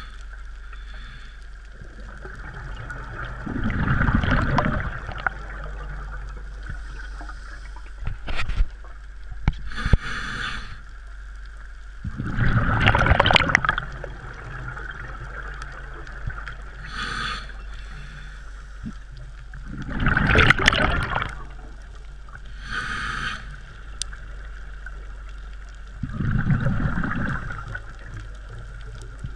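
Scuba diver breathing through a regulator underwater: about four loud rushes of exhaled bubbles, roughly seven seconds apart, with fainter regulator hiss between them and a few sharp clicks.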